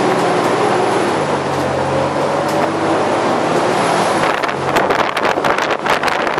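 Interior of a moving bus: the engine running steadily under road noise. From about four seconds in, a run of irregular clicks and knocks is heard over it.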